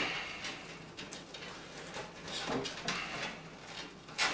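Soft rustling and scraping of PC power cables being worked through a rubber cable grommet in a computer case, with a few light knocks.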